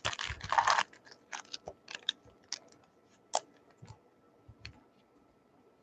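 Wrappers of 2019 Topps Opening Day baseball card packs crinkling as the packs are handled: a dense rustle for the first second, then scattered crinkles and light clicks that thin out.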